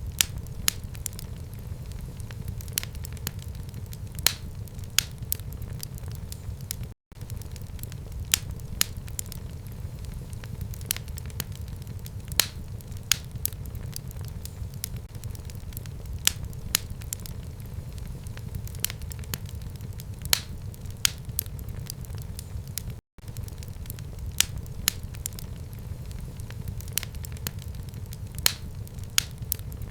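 Fire burning in a home fireplace: a steady low rumble with irregular sharp crackles and pops, one or two a second. The sound cuts out for an instant twice, about 7 and 23 seconds in.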